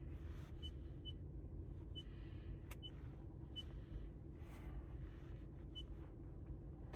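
Steady low rumble heard inside the cabin of a 2025 Toyota Prius on the move, with a few small high ticks at irregular spacing and some faint clicks.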